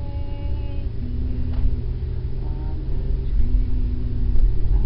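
Steady low rumble of a car's engine and road noise heard inside the cabin, with a few brief, faint voice sounds from a small child.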